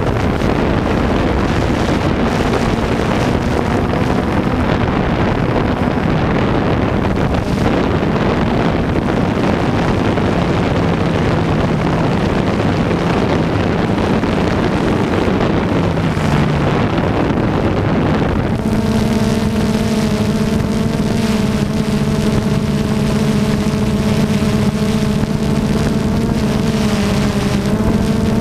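Camera drone's motors and propellers whirring steadily, their pitch shifting a few times as it holds and drifts. Wind noise on the onboard microphone is heavy at first, then eases about two-thirds of the way through, leaving the motor tones clearer.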